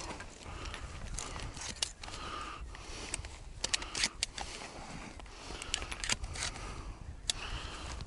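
Hunting gear being handled close to the microphone: rustling and scraping with scattered sharp clicks as the shell belt, shotgun and sling are moved about, over a steady low rumble.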